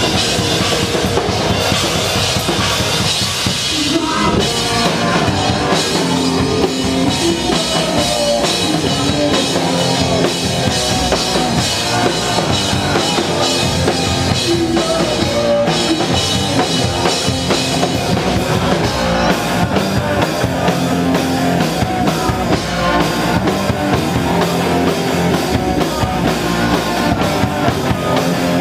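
Punk rock band playing live: distorted electric guitars through Marshall amplifiers over a drum kit, with bass drum and snare driving a steady beat.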